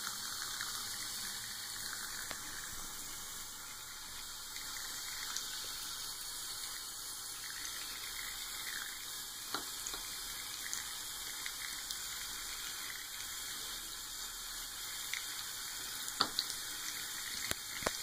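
A thin stream of tap water running steadily from a bathroom faucet into the sink drain, with a few short sharp clicks about halfway through and twice near the end.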